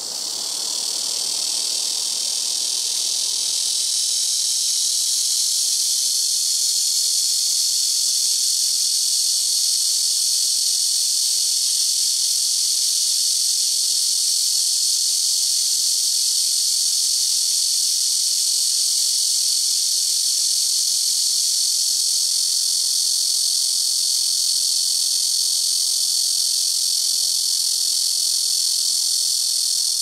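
Blackish cicada (Cryptotympana atrata) calling: a very loud, continuous, high shrill buzz that swells over the first few seconds and then holds steady.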